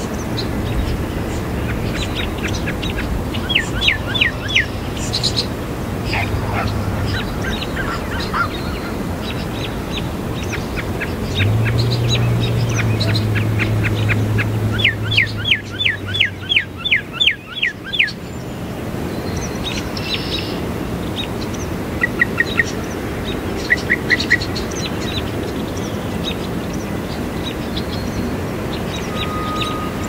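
Northern mockingbird singing, mimicking other birds: phrases of the same sharp falling note repeated quickly, about three a second, with shorter note groups between. A low steady hum runs underneath at times.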